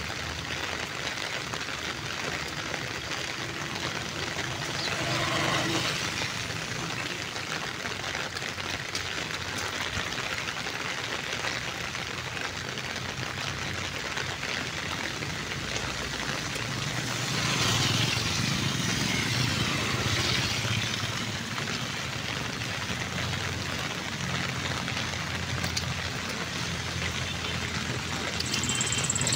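Steady hiss of rain and wet road with motor traffic, vehicle engines swelling louder about five seconds in and again around eighteen seconds in.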